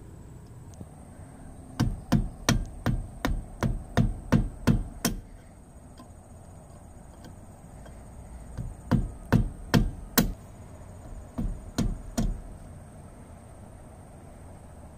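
A mallet tapping on pliers at a trailer wheel's spindle nut, driving a cotter pin home. There are three runs of sharp knocks at about three a second: ten strikes starting near two seconds in, then five, then four.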